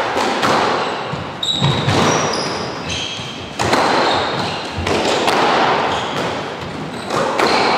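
Squash rally: the ball striking rackets and the court walls in several sharp, echoing hits, with sneakers squeaking briefly on the wooden floor about two seconds in.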